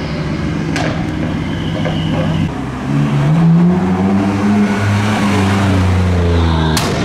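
BMW M3 F80's twin-turbo straight-six on a loud modified exhaust, running under light throttle and then accelerating hard from about three seconds in, its note rising and falling. A couple of sharp cracks near the end.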